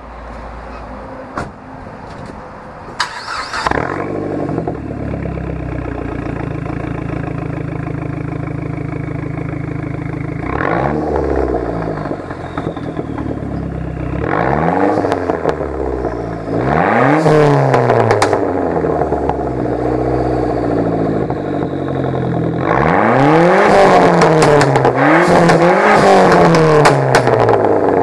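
2004 Dodge Neon SRT-4's turbocharged 2.4-litre four-cylinder, through a 3-inch custom exhaust with a Magnaflow cat, warm-started about three seconds in and settling into a steady idle. From about ten seconds in it is revved in short blips that rise and fall back, with a louder run of revs near the end.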